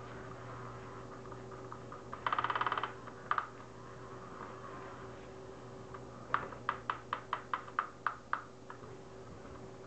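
Battery-powered Undercover Mouse cat toy at work under its nylon mat: a quick rattle of clicks about two seconds in, then later a run of about ten evenly spaced sharp ticks, roughly five a second.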